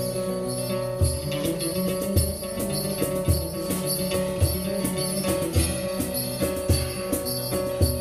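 Live acoustic band playing an instrumental intro: acoustic guitars with held notes and jingling percussion, joined about a second in by a low drum beat about once a second.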